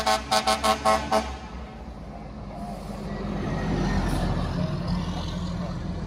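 FDNY fire engine sounding its horn in rapid short blasts, about five or six a second, which stop about a second in; then its diesel engine runs loud as the truck drives past close by and pulls away.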